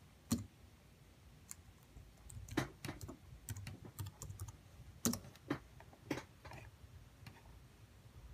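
Typing on a computer keyboard: about a dozen separate keystrokes at an uneven pace, a few sharper than the rest.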